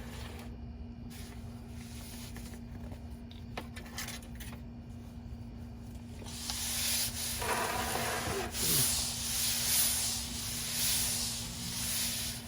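Hand oil-transfer pump pushing gear oil into a differential. From about six seconds in it hisses and sputters in uneven swells, drawing air with the oil as the bottle runs low.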